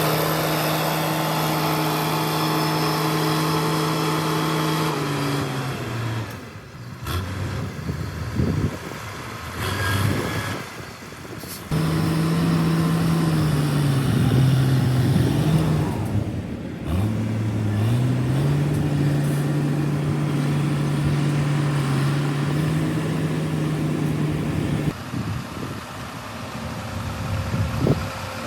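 Shantui DH17 C2 bulldozer's diesel engine working under varying load. Its steady pitch falls away about five seconds in, leaving a quieter stretch with knocks and clanks. The engine comes back up about twelve seconds in, dips and rises again, and drops off near the end.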